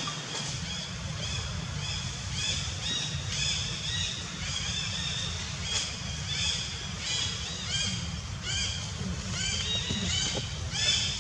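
Repeated high chirping, about two short arched chirps a second, kept up steadily, over a low steady rumble.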